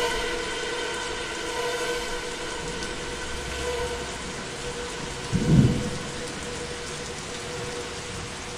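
Lyra-8 drone synthesizer through modular effects: sustained layered drone tones fade over the first few seconds into a rain-like hiss. About five and a half seconds in, a brief low rumbling swell rises and falls like thunder.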